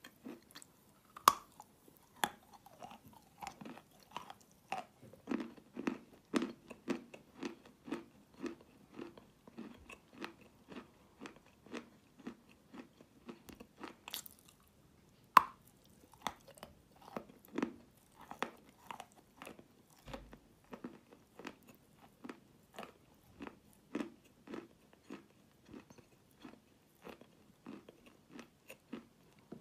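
Close-up chewing of wet chalk: short crunchy chews repeating about two to three times a second, with two sharp, louder bites, one about a second in and the loudest near the middle.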